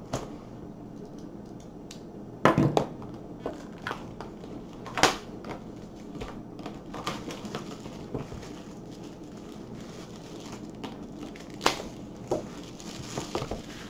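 Clear plastic shrink-wrap on a cardboard box being cut and peeled off, giving scattered sharp crinkles and crackles of the cellophane.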